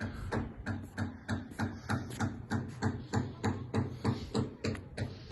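A rapid, even series of short knocks, about four a second, over a low steady hum.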